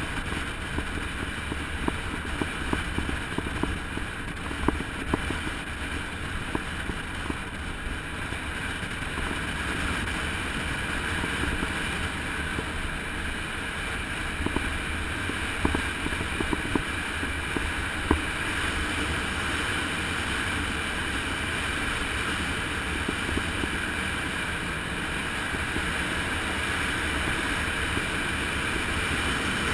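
Wind buffeting the microphone of a camera on a road bicycle coasting fast downhill. Small knocks from bumps in the road come at scattered moments, the loudest about eighteen seconds in.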